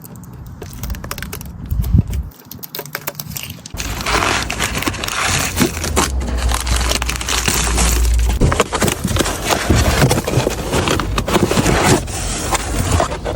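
Protective plastic wrapping being pulled and crumpled off a new car's body, crinkling and crackling. Sparse handling crackles at first, then continuous loud crinkling from about four seconds in.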